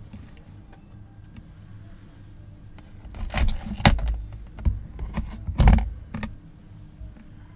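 A run of handling knocks, taps and rustles as the air-dry clay hare figure is laid down and shifted on the cutting mat among paint tubes and brushes. The loudest knocks come about four and nearly six seconds in, over a low steady room hum.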